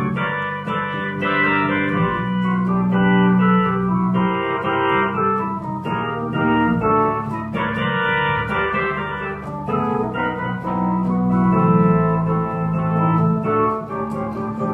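Keyboard played with both hands: an instrumental passage of held chords under a melody, changing every second or two, in the new key just after a key change.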